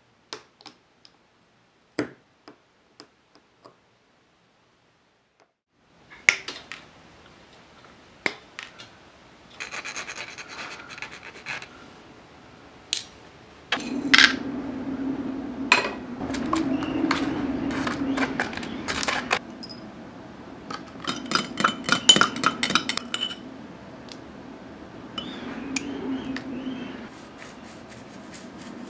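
Small photo-etched metal ship-model fittings being handled with metal tweezers: a few light clicks at first, then rubbing, scraping and clinking of the tiny parts in a small metal dish. A low steady hum runs under it from about halfway.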